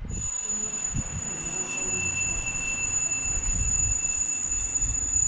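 Alarm clock ringing: a continuous shrill ring with a steady high pitch over a rattling clatter, going to wake a sleeper.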